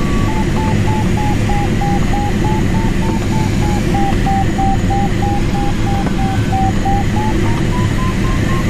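Audio variometer in a Mini Nimbus HS7 glider cockpit beeping about two to three times a second, over a steady rush of airflow and the drone of the tow plane ahead. The beeps' pitch dips, then rises near the end; a higher pitch signals a stronger climb.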